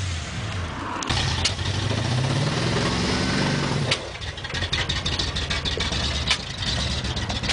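1983 Ford F-150 pickup's engine running, revving up for a few seconds with a rising pitch, then dropping back at about four seconds to lower, uneven running with many sharp ticks and crackles.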